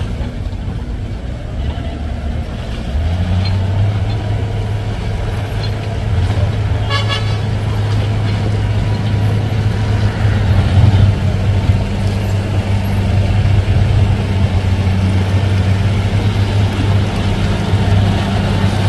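A heavy vehicle's engine running steadily; it grows louder about three seconds in. A short horn toot sounds about seven seconds in.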